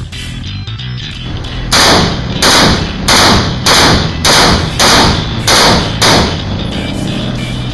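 Eight rifle shots about two-thirds of a second apart from a 5.56 AR-type carbine with an 11.5-inch barrel fitted with a SureFire muzzle brake, starting about two seconds in. Each shot is loud and rings with echo off the concrete-block walls of an indoor range. Background music plays underneath.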